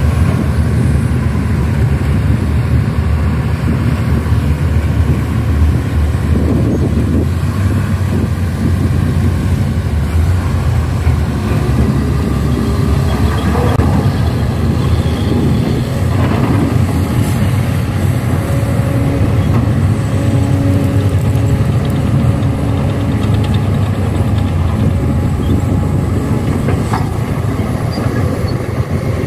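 Heavy diesel engines of an excavator and a dump truck running steadily under load, a deep continuous rumble with a few brief higher-pitched sounds around the middle and near the end.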